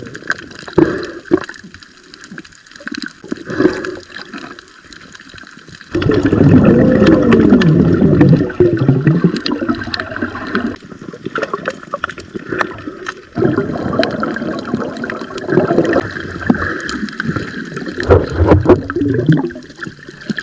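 Water gurgling and sloshing close to the microphone, loud and uneven, with sudden changes in level about six and thirteen seconds in.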